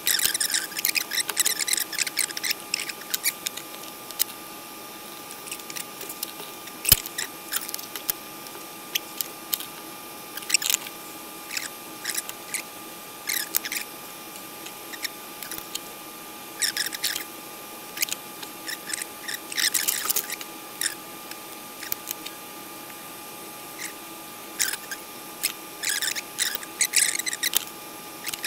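Irregular clusters of small scratchy clicks and snips from hands and tools working the wiring of a vacuum-tube radio chassis, with one sharper click about seven seconds in. A faint steady tone runs underneath.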